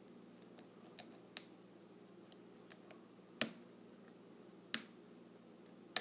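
Sparse, sharp metallic clicks from a hook pick lifting the pins of a six-pin padlock under tension, about six clicks over several seconds, the loudest about three and a half seconds in. The pins are being set one by one, and the last click comes just as the lock drops into a false set.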